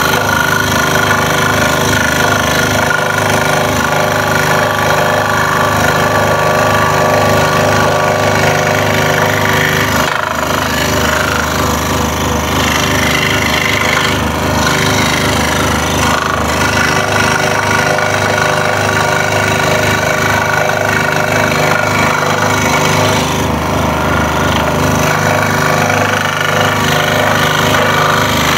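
Scroll saw running steadily, its fine blade stroking rapidly up and down as it cuts tight curves in thin wood fed by hand.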